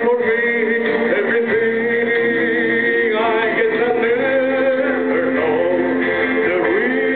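A man singing into a handheld microphone over accompanying music, holding long notes that waver in pitch.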